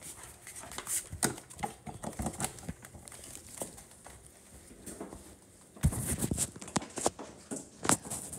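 Handling noise from a phone being carried against clothing: fabric rustling and irregular knocks and bumps on the microphone, with a cluster of louder knocks about six to eight seconds in.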